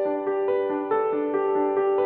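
Background music: light piano or electric-piano notes played in a steady, even rhythm.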